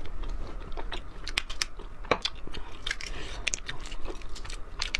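Close-miked chewing and the crackle of a boiled fertilized egg's shell being broken and picked open with the fingers: a string of sharp, uneven clicks.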